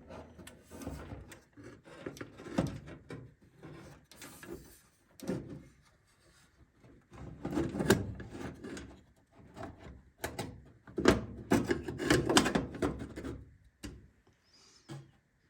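Handling noise: irregular clicks, knocks and rubbing as small parts and wires of an ignition switch are worked by hand, loudest about halfway through and again near the end.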